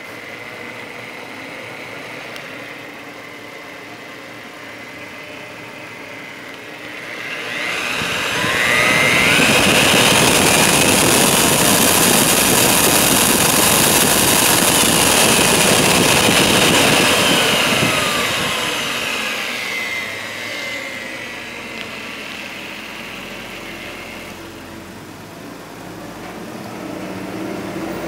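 Milwaukee magnetic drill press motor running free with no cutter fitted: it runs quietly, rises in pitch to full speed about eight seconds in, runs loud and steady for about ten seconds, then winds back down to a lower, quieter speed.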